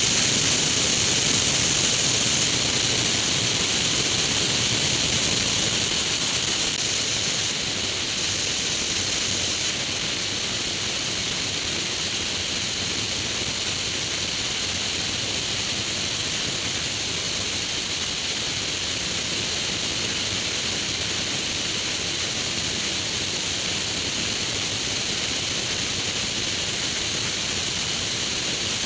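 Steady rush of wind over a camera mounted on the wing of a Grob G109 motorglider in flight, with no engine note standing out; it eases a little in the first few seconds, then holds steady.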